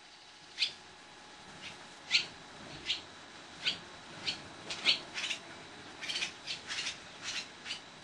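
Barn swallow calling: a series of about a dozen short, sharp, high chirps, unevenly spaced and sometimes in quick clusters, starting about half a second in.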